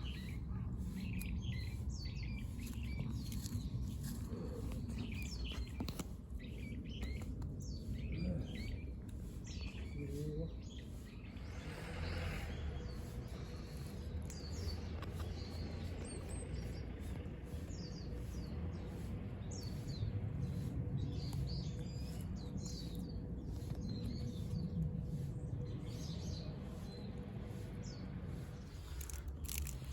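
Small birds chirping, with many short, high calls scattered throughout, over a steady low outdoor rumble.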